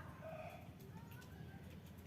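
Faint bird calls, one short call near the start and another brief rising call about a second in, over a low steady rumble of rural outdoor ambience.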